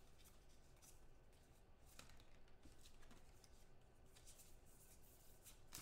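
Faint, scattered soft clicks and rustles of trading cards being flipped through and sorted by hand.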